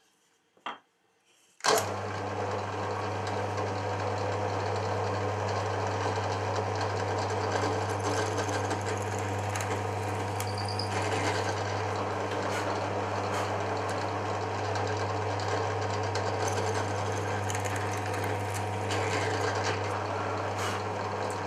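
Drill press starting up about two seconds in, its motor running with a steady hum while a twist bit drills holes into a square wooden blank.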